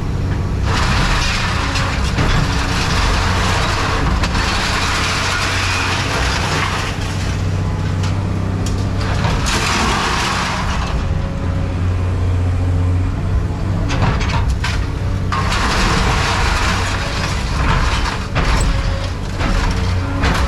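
Diesel engine of a heavy scrap-handling machine running steadily, with long stretches of hissing over it as the machine works.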